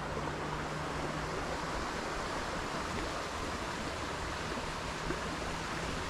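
Steady rushing of a jungle creek, an even hiss of flowing water, with a faint low hum that fades in and out.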